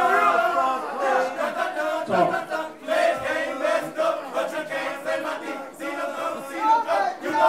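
A crowd of voices chanting and shouting together, with a few low thumps.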